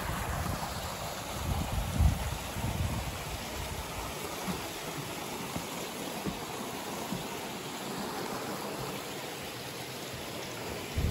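Small rocky stream rushing over a low cascade, a steady rush of water. Low rumble of wind on the microphone in the first few seconds, and a brief thump near the end.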